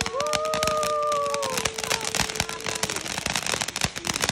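Ground fountain firework spraying sparks, crackling densely and continuously. A steady tone runs under the crackle for about three seconds, joined just after the start by a higher tone that rises in, holds for about a second and a half and falls away.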